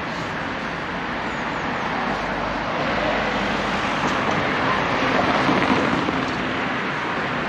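Street traffic: a car passing on the road, its noise swelling to its loudest about five or six seconds in and then easing.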